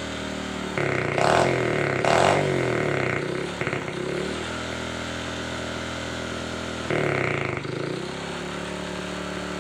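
Honda Supra Fit's single-cylinder four-stroke engine running through its hollowed-out, re-packed stock muffler. It is blipped sharply a few times, held at a steady speed in the middle, then revved again near the end, letting the new exhaust note be heard under throttle.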